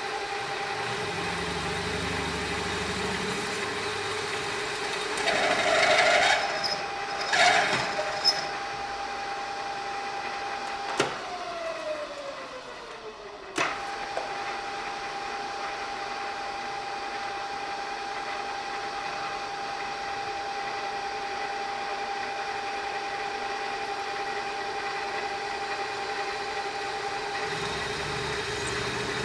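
IMA geared-head drill press running with a steady gear whine, with a few louder rasping bursts about five to eight seconds in. About eleven seconds in a click comes and the whine falls in pitch for a couple of seconds, then with another click it snaps back to its steady pitch.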